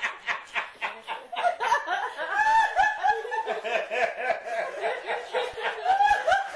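A person laughing hard at a joke's punchline, a quick run of repeated 'ha' pulses that carries on for several seconds.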